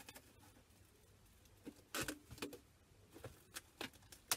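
Cling film being stretched and wrapped over a plastic tub: faint crinkling with scattered short clicks and crackles, a few about two seconds in and more toward the end.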